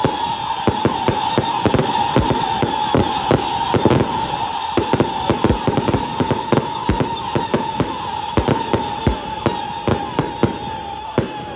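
Daytime aerial fireworks going off in rapid, irregular bangs, several a second, over a steady high whistle that stops near the end.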